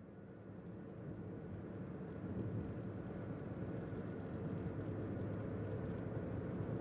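Car driving along a road: a steady engine and tyre rumble that gradually grows louder as it fades in.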